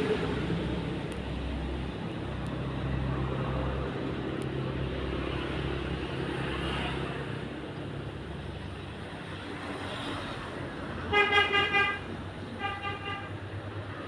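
Low rumble of motor traffic, then a vehicle horn honking in a quick run of short toots near the end, followed by a second, fainter run.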